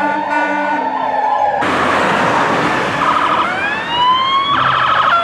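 Emergency vehicle sirens. First an ambulance siren sounds in short, repeated on-off tones over a slowly falling wail. After a sudden change, a louder fire engine siren comes in over a rushing noise, with wails that rise in pitch and a fast yelp near the end.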